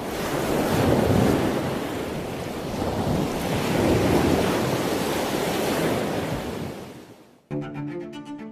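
Ocean surf: waves washing in with a steady rush that swells twice and fades out. Music with bowed strings starts near the end.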